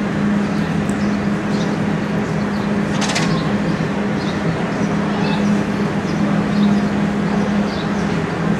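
Steady low hum over a rushing background noise, with faint short high chirps here and there and a brief rattling click about three seconds in.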